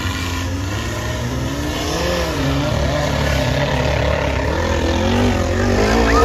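Off-road 4x4 racing truck's engine revving hard, its pitch rising and falling several times and growing a little louder near the end.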